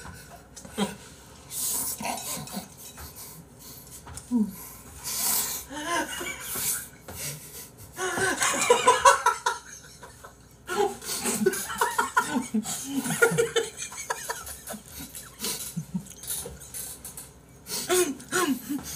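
A man laughing hard in repeated fits. The loudest, longest burst comes about eight seconds in, and another follows about three seconds later.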